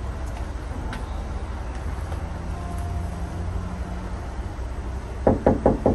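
Steady low rumble, like a running vehicle or road traffic, with a quick run of four or five short, loud sounds near the end.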